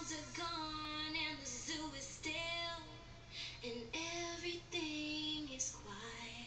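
A song from a children's programme playing on a television: high voices singing a melody with music.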